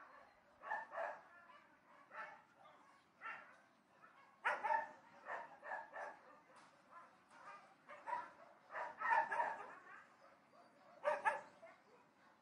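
Dogs barking at a distance in irregular bursts of short barks, with the loudest bursts about four and a half seconds in, around nine seconds, and near the end.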